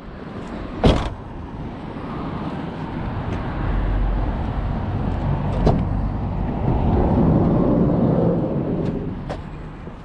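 A sharp knock about a second in, then motor vehicle noise that swells over several seconds and fades near the end.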